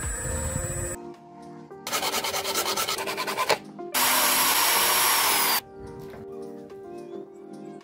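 Corded hand drill spinning a small PVC part on a bolt while a tool is held against it: a rasping run of about two seconds, then a louder steady hissing grind of about a second and a half with a slightly falling whine. A low rumble cuts off about a second in, and background music plays throughout.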